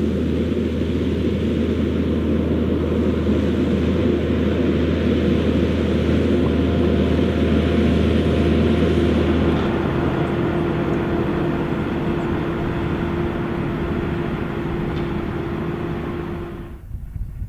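Same Fortis 160 tractor's diesel engine running steadily under load while pulling a five-furrow Lemken plough. A deep low drone drops away about ten seconds in, and the sound cuts off suddenly near the end.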